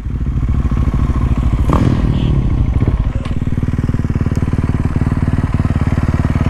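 Single-cylinder dirt bike engine running steadily, its firing pulses even, with a brief rattle just under two seconds in and a click about a second later.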